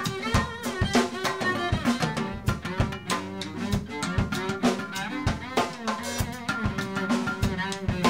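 Live folk band playing an instrumental break without singing: a drum kit keeps a steady beat with rimshots under acoustic guitar, upright bass and bowed strings.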